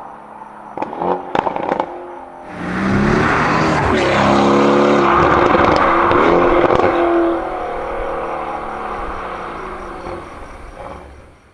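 Mercedes-AMG GLC63 S twin-turbo V8 on a catless valvetronic exhaust with its valves open: a quick string of sharp pops about a second in, then the engine revs hard under full acceleration, pitch rising through a gear change. It fades as the car pulls away.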